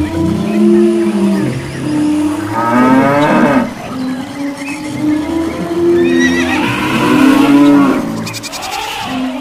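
A run of overlapping animal calls, with cattle mooing among them, in long held tones and a few calls sliding up and down in pitch about three and seven seconds in.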